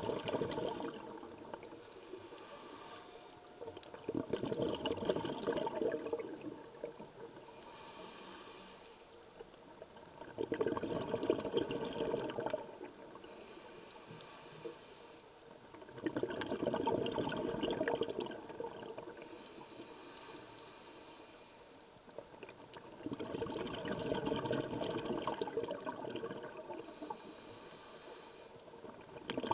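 Scuba diver breathing through a regulator underwater: a bubbling rush of exhaled air about every six seconds, with a short high hiss of inhalation between.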